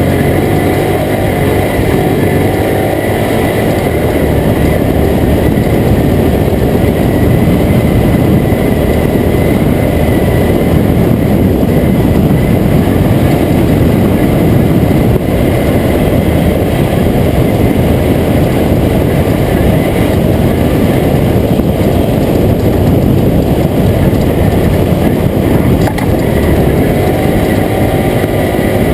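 Toyota Tacoma prerunner race truck driving, its engine running with loud, steady road noise.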